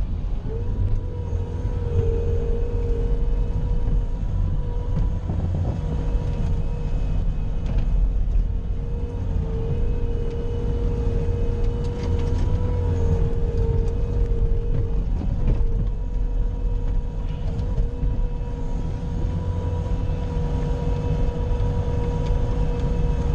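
Bobcat skid-steer loader's engine running steadily under load while plowing snow, a deep rumble with a steady whine over it.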